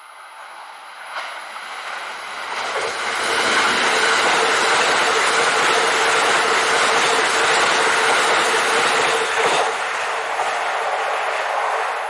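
Kintetsu 80000 series Hinotori electric limited express train passing at speed. The rushing of wheels and motors builds over the first few seconds and holds loud for about six seconds, with a steady hum under it. It then falls away as the last car goes by.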